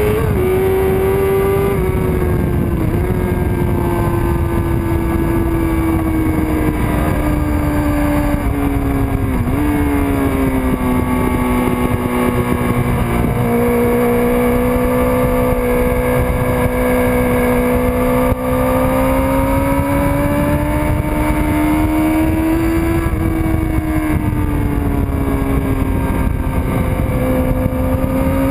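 1999 Kawasaki ZX-6R's 600 cc inline-four engine running hard at high revs, its pitch sagging slowly through the first half and climbing again, with brief dips about 3 and 9 seconds in. Steady wind rush underneath.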